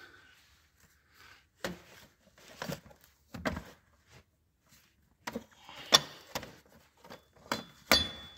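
Metal clutch release lever and fork of a tractor being moved and handled: a string of uneven metallic clicks and knocks. The last two knocks, near the end, ring briefly.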